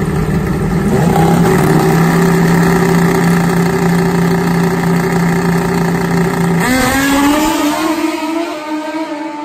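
Turbocharged Suzuki Hayabusa inline-four drag bike engines held at steady high revs on the start line, then launching about seven seconds in, the pitch climbing fast as the bikes accelerate away and the sound growing quieter.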